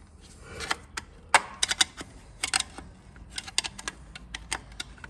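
Irregular sharp metal clicks and clinks as a Belleville cushion spring and clutch parts are pried and lifted out of a GM 8L90 transmission case, the loudest click about a second and a half in.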